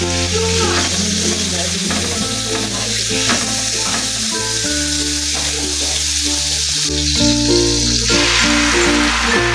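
Melted margarine sizzling in a hot non-stick frying pan, with beaten egg poured in near the end, under steady background music.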